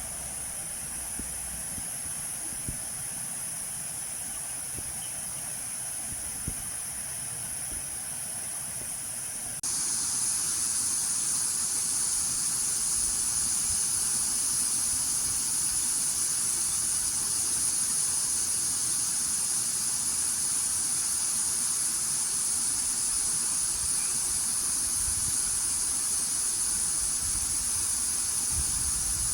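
Cicada chorus: a steady high-pitched buzz that jumps suddenly louder about ten seconds in.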